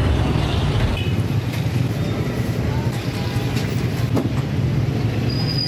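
Steady low rumble of street traffic noise, with a light knock about four seconds in.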